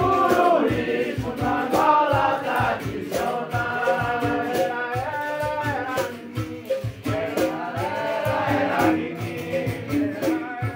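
Capoeira Angola roda music: berimbaus struck in a steady rhythm with rattling caxixis, under a group of voices singing a corrido together.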